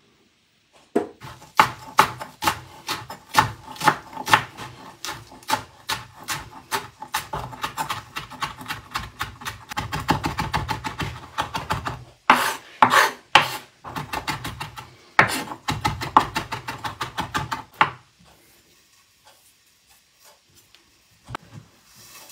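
Kitchen knife chopping fresh parsley on a bamboo cutting board: a long run of sharp knocks, a few a second, quickening to dense runs in the middle, stopping about eighteen seconds in.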